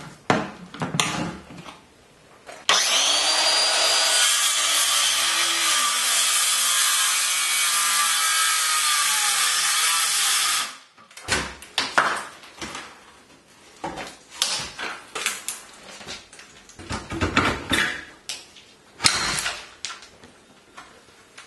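Cordless power saw cutting through an old wooden door frame, running steadily for about eight seconds and then stopping suddenly. Before and after it, short knocks and scrapes as the frame wood is pried and pulled loose.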